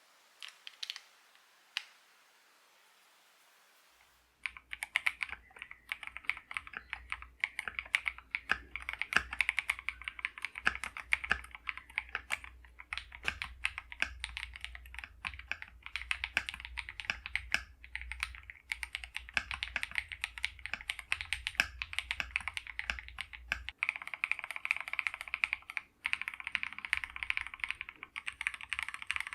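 Typing on a KiiBOOM Phantom81 gasket-mounted mechanical keyboard with pre-lubed switches: a few isolated clicks, then a fast, continuous run of keystrokes starting about four seconds in.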